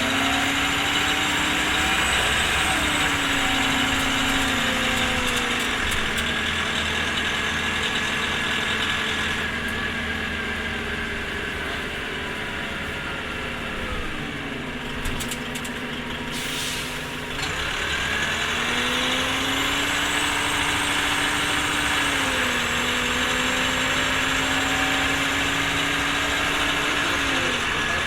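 Orion V transit bus's diesel engine and transmission under way. A whine rises, holds and steps down at each gear change. The bus eases off a little past the middle, a short hiss comes, then it pulls away again through further shifts.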